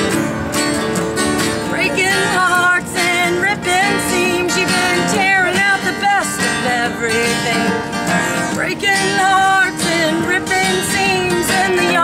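Acoustic guitar strummed steadily while a woman sings. About two seconds in she comes in with long held notes that waver with vibrato.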